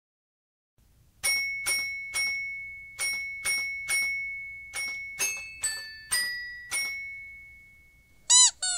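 Bright bell-like struck notes, glockenspiel-style chimes, about a dozen in a row over some five seconds, each ringing and fading over a faint low hum. Near the end there is a quick warbling chirp whose pitch bends up and down twice.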